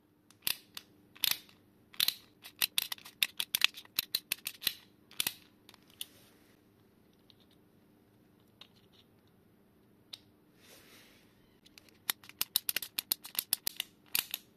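Small 3D-printed plastic ratchet screwdriver clicking as its ratchet is worked: irregular runs of sharp plastic clicks in the first six seconds, a brief scrape around eleven seconds, then a fast run of clicks near the end as it drives a small screw into wood.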